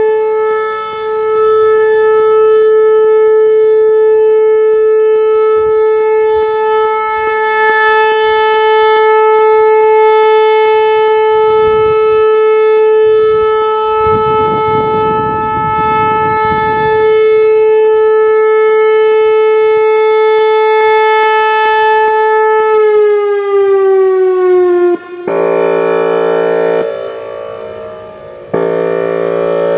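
Whelen Vortex electronic outdoor warning siren holding its steady Alert tone, which glides down in pitch about 23 seconds in. It then switches to the Airhorn signal: two horn-like chordal blasts of about two seconds each with a short gap between.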